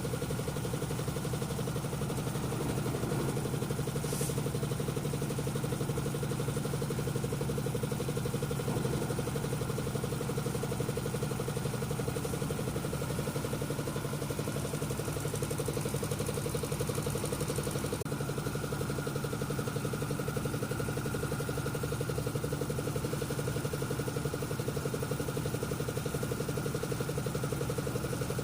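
Engine of a concrete mixer running steadily at a constant speed, an even mechanical drone that does not change.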